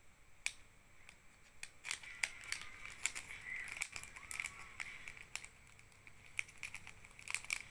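A thin plastic sleeve crinkling and crackling in the hands as it is peeled off an old paper banknote, in scattered sharp clicks and rustles. A faint steady high tone runs underneath.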